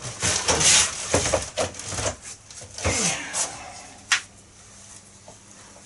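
Rummaging and handling clatter: irregular knocks, clicks and rustling as things are moved about, ending with one sharp click about four seconds in.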